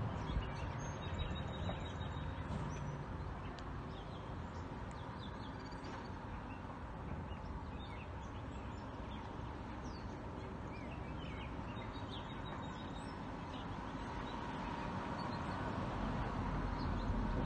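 Small birds chirping in short, scattered calls over a steady low background rumble. Near the end a low rumble grows louder as a train approaches.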